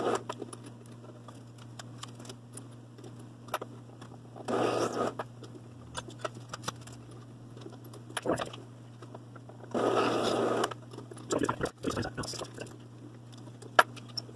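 Benchtop drill press motor running with a steady hum while a small drill bit bores into a briar block in two short bursts of cutting, about 5 and 10 seconds in. Scattered clicks and knocks come from the feed handle and the block in the vise.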